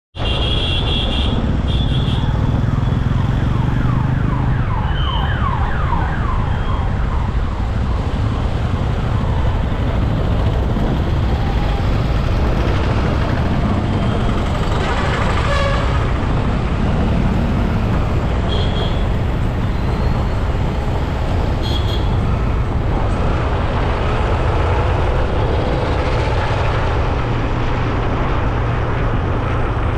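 Road traffic noise heard while riding along a road: a steady low rumble of vehicles and tyres, with a few short high-pitched tones near the start and again about two-thirds of the way through.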